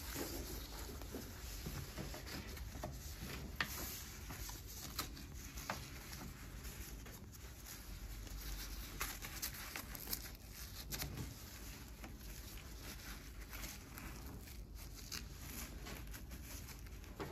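Faint rustling and scattered light clicks from gloved hands handling a fabric dog knee brace and its hook-and-loop straps.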